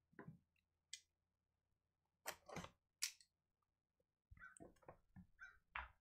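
Faint, scattered handling noises on a cardboard trading-card box: a few soft rustles and clicks, with near silence between them.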